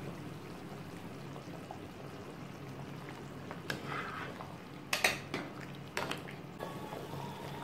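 A metal spoon stirring soup in an aluminium pot, clinking and scraping against the pot a few times in the second half, the loudest about five seconds in. Underneath, the soup simmers steadily on the gas burner.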